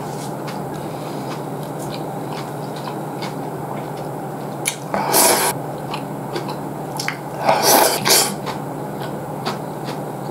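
Ramen noodles being slurped: one loud slurp about five seconds in and a double slurp a couple of seconds later, with small chewing and chopstick clicks between them over a steady background hum.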